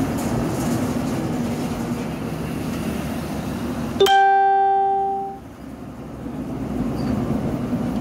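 A single plucked-string note rings out about four seconds in and fades away over about a second and a half, over a steady background noise that drops out while the note sounds.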